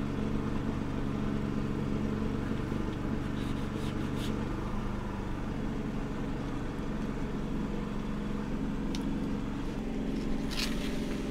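A small engine running steadily at one constant speed, a low even drone, with a few light clicks of cutlery.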